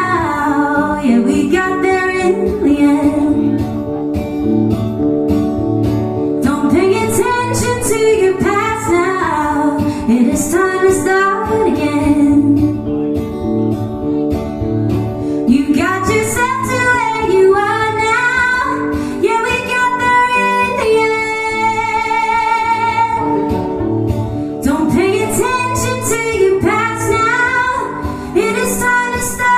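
Live pop-folk band performance: a woman singing over guitar, with a steady bass beat underneath.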